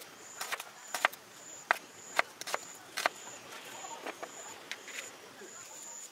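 Kitchen knife chopping vegetables on a plastic cutting board: about a dozen sharp, uneven taps. A high chirp repeats in the background about every two-thirds of a second.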